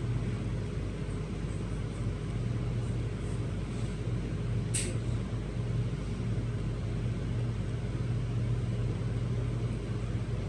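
Steady low hum inside a standing commuter train carriage, with one short, sharp hiss about five seconds in.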